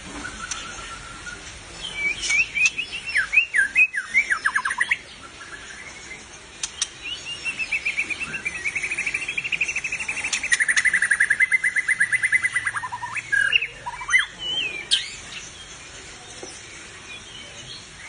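White-rumped shama singing: a burst of quick falling notes, then a long fast trill of rapid repeated notes that slowly sinks in pitch, ending in a few downward slurs.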